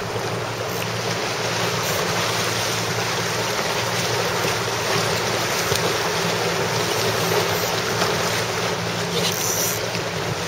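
Wind buffeting the microphone and water rushing past the hull of a moving motorboat, over a steady low engine hum.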